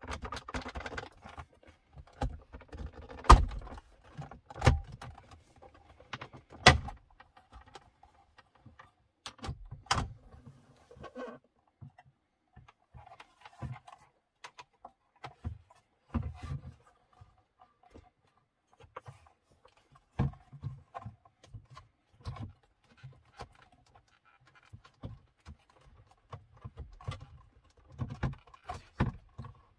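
Hard plastic centre-console trim of a BMW E90 being pried and lifted out by hand. There are several sharp clicks and knocks as the panel comes free, the loudest in the first half, with rattling and rustling from the handling in between.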